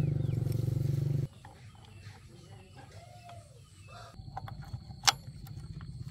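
A loud, low, pulsing drone that cuts off abruptly just over a second in, followed by light metallic clicks of engine parts being handled. The low drone returns more quietly near the end, with one sharp metallic tap about five seconds in.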